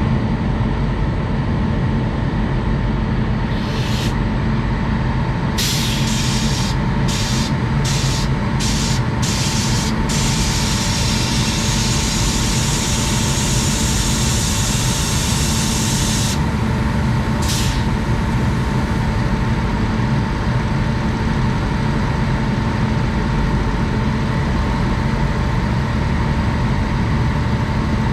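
WAG-9 three-phase electric locomotive standing energised, its blowers and compressors running with a steady whirring hum. Compressed air hisses over it: a short blast about four seconds in, a string of quick puffs, then a long hiss lasting about six seconds, and one more short puff near the end.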